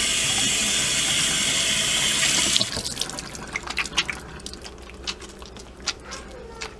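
Kitchen faucet running into a stainless steel sink, shut off abruptly about two and a half seconds in. Then wet hands rub a bar of homemade soap together, making soft, irregular wet clicks and squelches.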